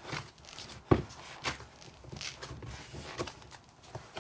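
Hands kneading a ball of cheese paste bait on a kitchen worktop: irregular soft thumps and squishing as the paste is pressed and folded, with one sharper knock about a second in.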